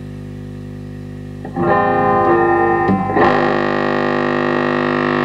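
Marshall Lead 30 W transistor guitar amp humming loudly through its speaker; about a second and a half in, an electric guitar is strummed through it, and shortly after, the amp locks into a loud, steady held tone. This is the amp breaking into oscillation: the power supply collapsing under the big signal, which the repairer suspects comes from failing smoothing capacitors.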